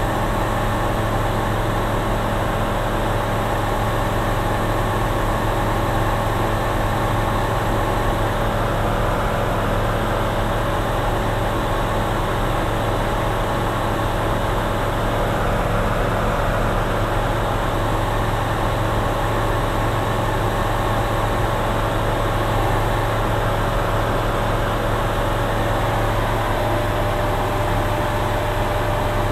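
Steady drone of a single-engine light aircraft's piston engine and propeller in flight, heard inside the cockpit: a constant low hum with a steady higher tone over even rushing noise.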